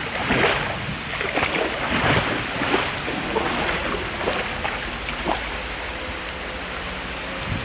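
Flowing stream water rushing steadily, with irregular splashes over the first few seconds before it settles to a steadier rush.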